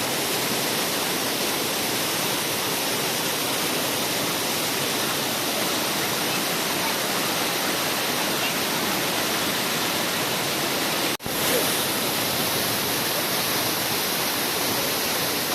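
Water pouring over a waterfall: a steady, even rush of falling water, broken by a momentary cut-out about eleven seconds in.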